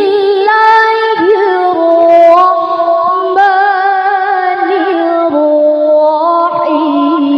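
A woman reciting the Qur'an in the melodic tilawah style into a microphone, in a high voice: long held notes that step up and down in pitch, with wavering ornaments.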